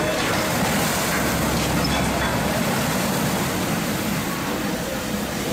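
Steady rushing and splashing of water from a ship's side launch: the hull crashing sideways into the canal and the displaced wave surging up over the bank.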